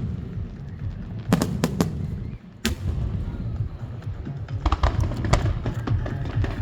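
Aerial fireworks bursting: a quick run of sharp bangs a little over a second in, another loud crack near the three-second mark, then a patter of smaller crackling bursts about five seconds in, all over a continuous low rumble.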